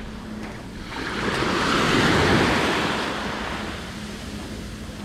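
Surf on a sandy beach: a small wave washing up over the sand, swelling about a second in, loudest around two seconds, then draining away.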